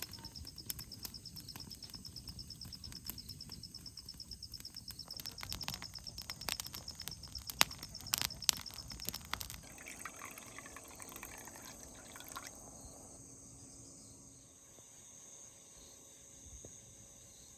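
An insect trilling steadily in fast, even pulses over scattered sharp clicks and crackles. About nine and a half seconds in, the trill stops and a fainter steady hum and hiss remain.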